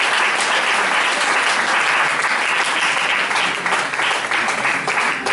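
Audience applauding, steady at first and thinning into scattered separate claps over the last two seconds.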